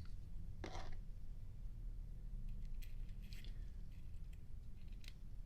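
Small metallic clicks and a short scrape from handling a brushed-chrome Zippo windproof lighter, over a steady low hum. The scrape comes about a second in, the clicks a few seconds later.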